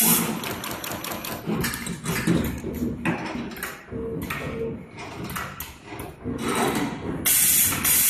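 Cable stripping and crimping machine cycling: repeated clicks and mechanical clatter from its stripping and crimping mechanism, with a loud burst of air hiss near the end.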